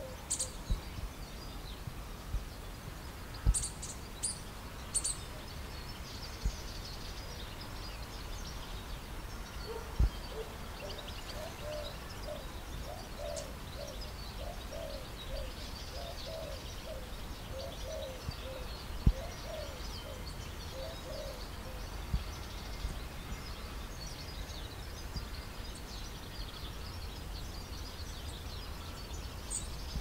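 Birds chirping and calling over a steady background hiss, with a run of lower repeated calls through the middle and a couple of brief low thumps.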